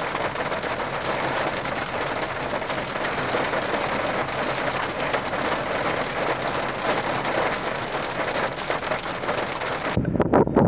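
Heavy rain falling steadily as an even hiss. About ten seconds in it cuts abruptly to gusts of wind buffeting the microphone, with sharp knocks.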